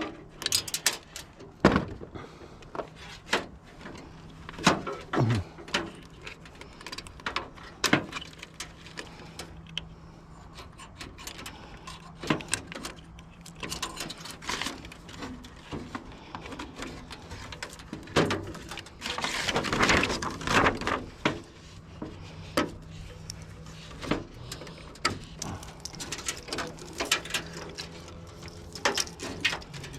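Irregular clanks, clicks and knocks of hand tools and metal parts being handled while an appliance is torn down for scrap copper, with a longer scraping, rattling stretch about twenty seconds in. A faint steady low hum runs underneath.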